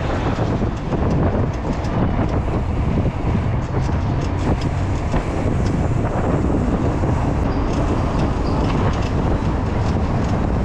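Steady rumble of wind on the microphone mixed with road and traffic noise while riding a bicycle, with scattered small ticks over the second half.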